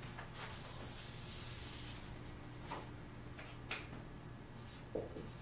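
Dry-erase marker rubbing across a whiteboard as numbers are written: one longer hissing stroke lasting over a second early on, then a few short strokes.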